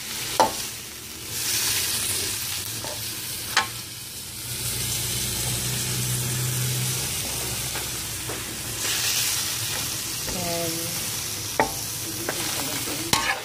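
Shredded boiled chicken frying with sautéed garlic and onion in an aluminium wok, sizzling steadily as a metal spoon stirs it. The spoon gives a few sharp clinks and scrapes against the pan.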